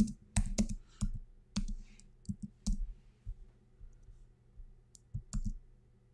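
Computer keyboard clicking as keys are typed, a quick run of keystrokes over the first three seconds, then a few more just after five seconds.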